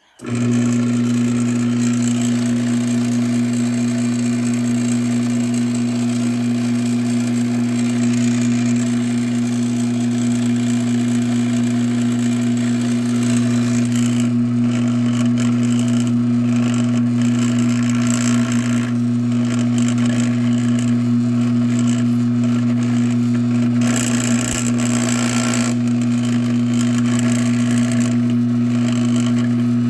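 LiftMaster 1245 garage door opener's motor starting abruptly and running with a loud, steady hum that does not stop. It runs non-stop and ignores the wall button, a fault the owner puts down to a faulty logic board or motor.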